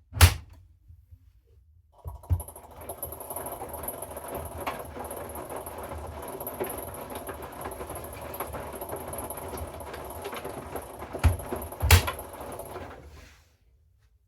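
Hoover front-loading washing machine in its wash phase: the drum turns and tumbles the load for about ten seconds, with a few knocks from the tumbling load, then stops.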